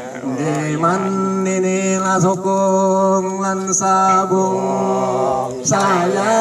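Traditional Dayak Kenyah chant: the singing holds one long, steady note for several seconds, then slides down into the next phrase near the end.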